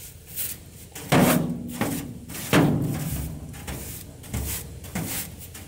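Hand-held scrubber worked over the rusty sheet-steel floor of a dump cart bed, about a dozen short rasping strokes at an uneven pace.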